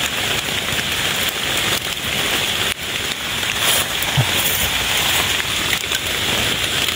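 Steady rain falling on the leaf litter and foliage, a continuous even hiss.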